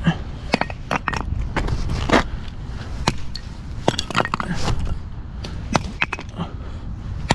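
Small wood fire crackling, with sharp irregular pops a few times a second, over a low rumble of wind on the microphone.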